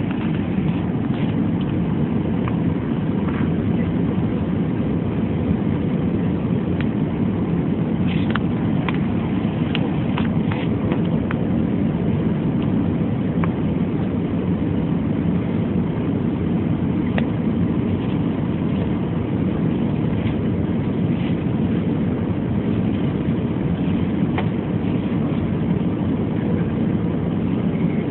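Steady low engine rumble that neither rises nor falls, with a few faint ticks.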